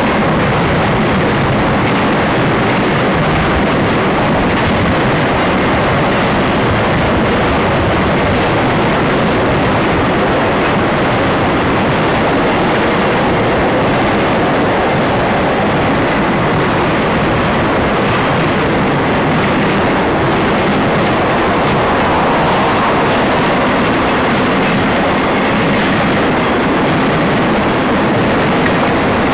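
BNSF intermodal freight train passing, its cars rolling by with steady, loud wheel-on-rail noise that does not let up.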